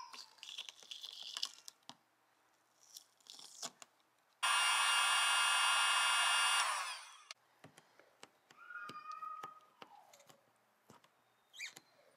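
Chrome badge being pried off a car bumper with channel-lock pliers: scattered sharp clicks, crackling and tearing of the plastic and adhesive. A loud steady motor whir cuts in about four seconds in and winds down a few seconds later.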